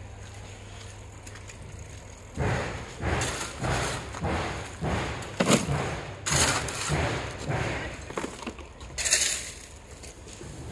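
Shovel scooping crushed stone and gravel, stroke after stroke: the blade crunching into the pile and the stones rattling as they are tipped into a wheelbarrow. The strokes begin about two seconds in and stop about nine and a half seconds in, with a sharper clatter about halfway through.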